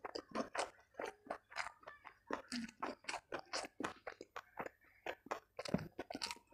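A person chewing food with the mouth full, wet crunching clicks about five times a second with brief pauses, close to a clip-on microphone.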